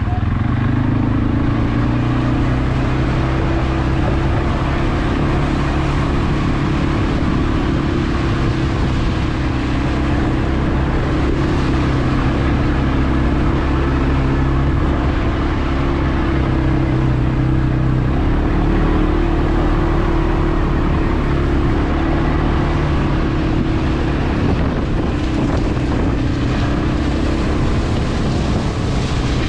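CFmoto CForce 520 ATV engine running under way, its pitch shifting up and down a few times with the throttle, over a steady rush of noise.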